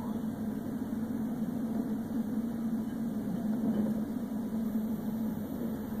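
Steady low vehicle engine drone with road noise, picked up by a police car's dashcam while it follows a backhoe along a road.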